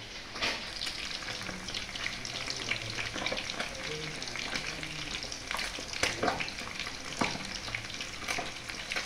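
Pieces of fish frying in hot oil in a wok: a steady sizzling crackle with frequent sharp spattering pops.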